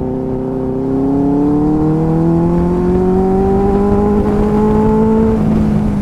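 Benelli 600i inline-four motorcycle engine, fitted with a replica M4 aftermarket exhaust, pulling under throttle, its pitch climbing steadily as the bike gains speed. The climb breaks off a little after five seconds in and the engine note drops back.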